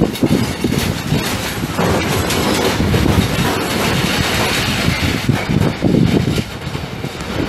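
Freight train of flat wagons rolling past, with a steady rumble and the wheels clacking over rail joints.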